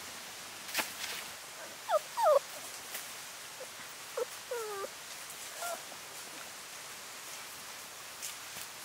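Month-old puppies whimpering: short, high whines that fall in pitch, the two loudest together about two seconds in and a few softer ones around the middle. A single sharp click comes just before the first whines, over a steady hiss.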